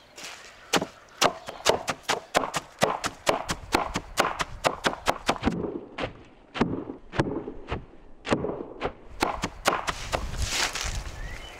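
A large broad-bladed knife chopping a pile of fresh leafy greens on a wooden cutting board, each stroke a sharp knock of the blade on the board, about three a second at first and then slower. Near the end the chopped greens rustle as they are gathered up by hand.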